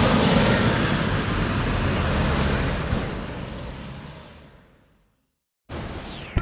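Car engine and road noise fading out to silence about five seconds in. Near the end a short whoosh falling in pitch starts.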